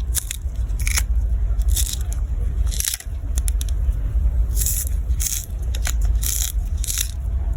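A knife scraping and peeling the skin off vegetables in irregular short strokes, over a steady low rumble.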